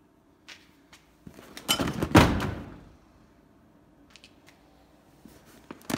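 A single loud, dull thump with a short rushing noise that trails off, about two seconds in; the rest is faint room noise with a few light ticks.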